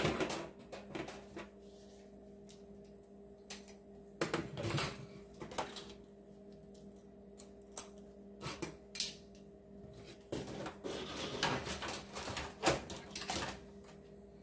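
Sporadic clinks, clicks and knocks of a wire deep-fryer basket and its handle being handled, in irregular clusters, over a steady faint hum.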